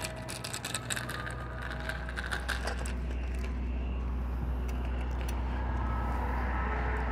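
Bike rattling and clicking as it rolls over rough pavement for the first few seconds, over a steady low rumble that carries on after the rattling stops.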